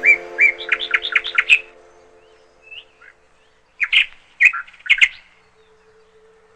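A bird chirping: a quick run of short, sharp notes in the first second and a half, then three louder chirps about four to five seconds in.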